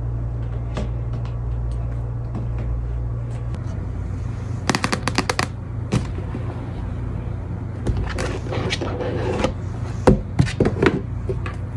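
Cardboard skincare gift box being handled and opened. A quick run of sharp clicks comes about five seconds in, then scraping and a few knocks as the lid comes off, over a steady low hum.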